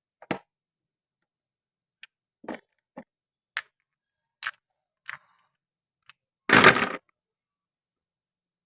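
Toy plastic and wooden food and utensils being handled and cut: a string of short, separate clicks and knocks, then a louder crunching scrape lasting about half a second near the end.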